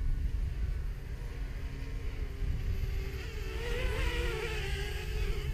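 Parrot quadcopter drone's propeller whine, rising and wavering in pitch from about three seconds in, over a low wind rumble on the microphone.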